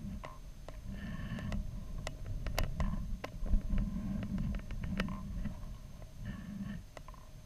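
Uneven low rumbling with scattered sharp clicks and a few short buzzing whirs, from a camera payload hanging under a high-altitude balloon.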